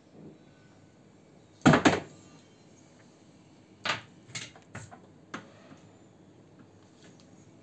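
A few sharp knocks and clicks of parts being handled: two loud ones close together a little under two seconds in, then a handful of smaller ones between about four and five and a half seconds in.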